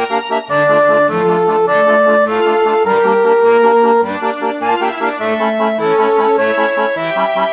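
Background instrumental music: a tune of held melody notes over a steady, bouncing bass.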